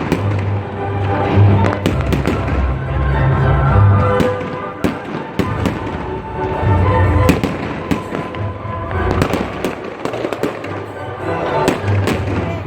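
Fireworks going off: many sharp bangs and crackles in quick, irregular succession, over loud music.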